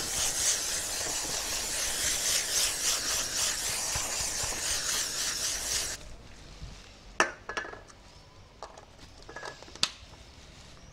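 Alcohol sprayed onto the bare keyboard in one long continuous hiss that stops abruptly about six seconds in. A few light clicks and taps follow.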